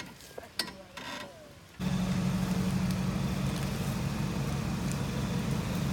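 Faint voices and a click, then about two seconds in an off-road 4x4's engine running steadily cuts in abruptly and holds.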